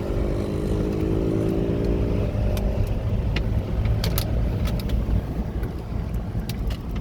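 Small moped engines running, a buzzing engine note fading out about two seconds in, over a steady low rumble, with scattered sharp clicks later on.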